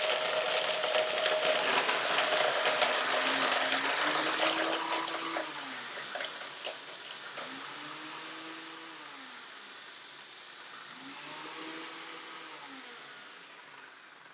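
A VAVA and a Ninja countertop blender crushing ice side by side on their crush settings. Ice rattles and cracks against the plastic jars over the loud whir of the motors, and the noise falls away as the ice breaks down. In the second half a motor's pitch rises and falls three times in pulses.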